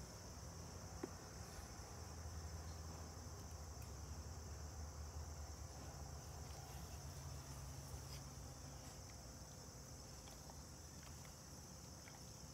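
Faint outdoor background: a steady high-pitched chirring over a low rumble, with a small click about a second in.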